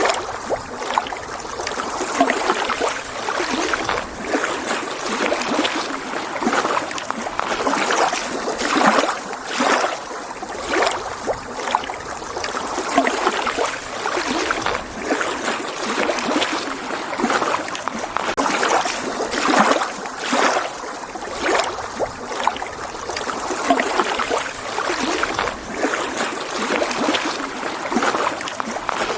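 Small lake waves lapping against the shore: a continuous wash of water with soft, uneven splashes about every second or two.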